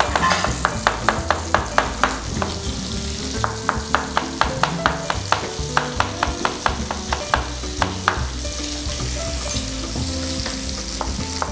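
Large chef's knife chopping garlic finely on a wooden cutting board, a quick run of knocks at about four a second that stops about eight seconds in. Under it, chicken thighs sizzle steadily as they fry in butter in a pan.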